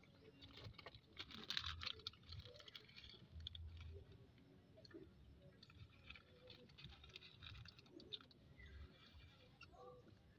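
Faint crinkling and rustling of a plastic snack bag being handled, in two spells, about a second in and again around six to eight seconds in.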